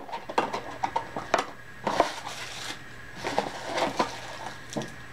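Clear plastic wrapper crinkling and crackling in irregular bursts as it is pulled open by hand and worked off a bar of soap.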